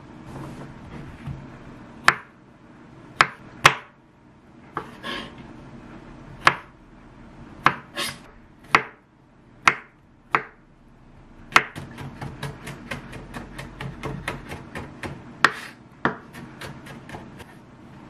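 Chef's knife chopping garlic cloves on a wooden cutting board: separate sharp knocks about a second apart at first, then a quick steady run of about four chops a second in the second half.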